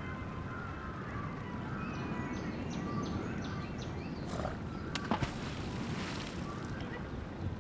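Outdoor riverbank ambience: a steady low rumble with faint short bird chirps. About five seconds in there is a sharp knock, followed by about a second of hissing noise.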